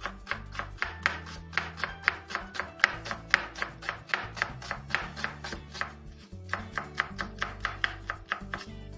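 Kitchen knife chopping an onion on a wooden cutting board: quick, even cuts about four a second, with a short pause about six seconds in.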